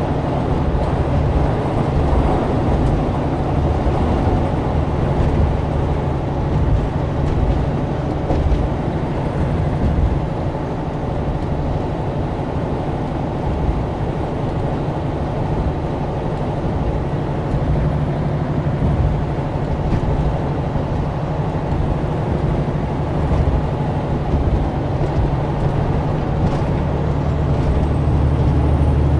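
Semi-truck's diesel engine and tyre noise heard from inside the cab while cruising at highway speed: a steady low drone with road rumble over it.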